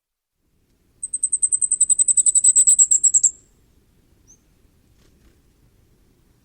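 Common firecrest singing: one rapid run of very high, thin notes, about a dozen a second, growing louder and stopping abruptly after a little over two seconds. A single faint high note follows about a second later.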